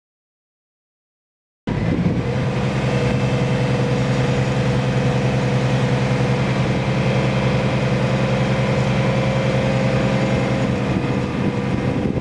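Dead silence for about two seconds, then a tractor engine running at a steady speed, with no change in pitch or load.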